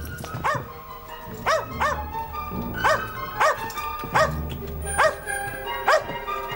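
A dog barking over and over, single and double barks about one or two a second.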